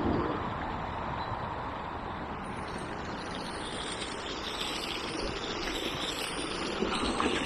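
Steady rush of water pouring from a small side inflow into a river. It grows brighter through the middle, and a few short knocks come near the end.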